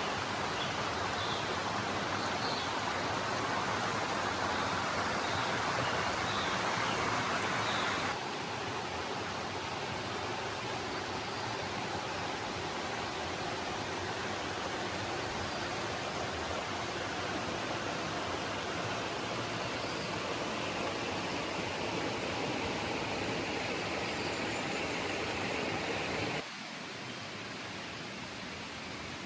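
Steady rush of a forest river's flowing water. The sound drops abruptly twice, about 8 seconds in and near the end, and a few faint high chirps sit over it in the first seconds.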